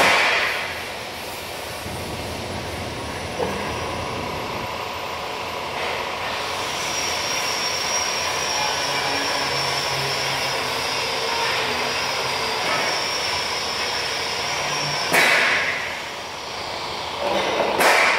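Metal-cutting band saw running, its blade cutting through metal stock with a steady drone and a high whine through the middle of the cut. Two loud bursts of noise near the end.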